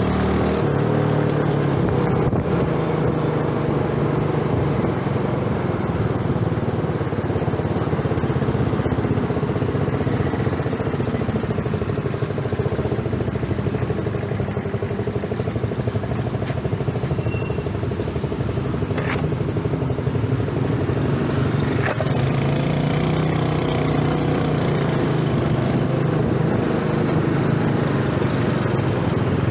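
Small single-cylinder engine of a Yamaha underbone motorcycle running under the rider, its pitch rising and falling with the throttle in slow stop-and-go traffic, over a steady rush of wind and road noise. Two short sharp clicks come about two-thirds of the way through.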